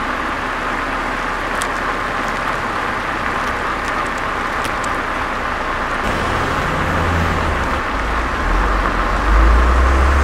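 Steady motor-vehicle running and road noise, with a deeper engine rumble coming in about six seconds in and growing louder near the end.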